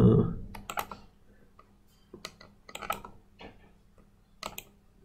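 Scattered, irregular clicks from a computer mouse and keyboard, with the last syllable of a spoken word right at the start.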